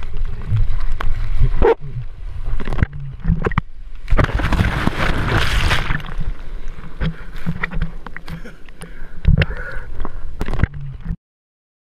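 Seawater sloshing and splashing against a surfboard-mounted action camera, with knocks of water on the housing, and a burst of crashing whitewater about four seconds in as a broken wave washes over the board. The sound cuts off suddenly near the end.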